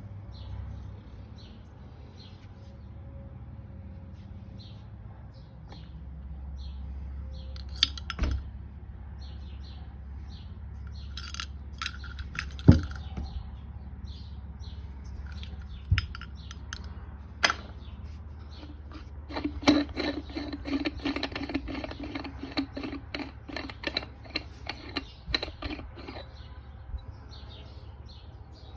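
Small metal pieces knocking and clinking: a few single sharp knocks, then a quick rattling run of ringing clicks lasting several seconds. Birds chirp in the background over a steady low hum.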